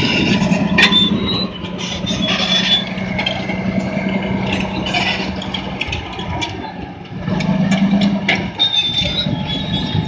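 Caterpillar D10 bulldozer's V12 diesel engine running under load while its steel tracks clank and squeal and rock knocks against the blade. The engine sags briefly about six to seven seconds in, then pulls hard again.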